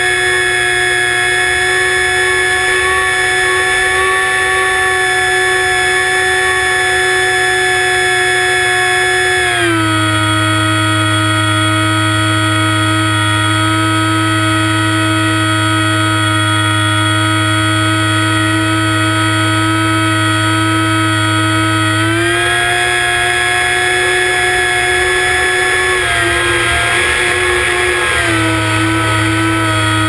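ParkZone Icon A5 RC seaplane's brushless electric motor and pusher propeller whining steadily, heard from a camera mounted on the plane. The pitch steps down about ten seconds in as the motor slows, rises again a little after twenty seconds, and dips briefly near the end.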